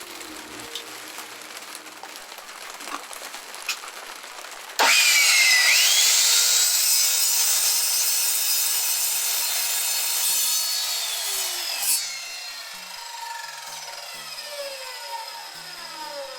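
An electric power saw starts suddenly about five seconds in, its whine rising as it spins up, and cuts through 8 mm aluminium plate for about seven seconds. It is then switched off and its whine falls slowly as the motor winds down.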